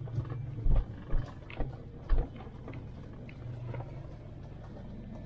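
Vehicle engine running low and steady while being driven off-road. Several heavy thumps and knocks come in the first couple of seconds as it bumps over rough ground, then it settles to a steadier run.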